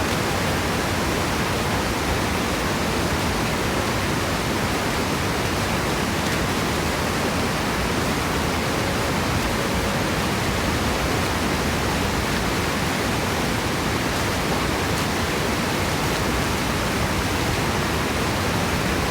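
Waterfall running full, a steady, even rush of falling water.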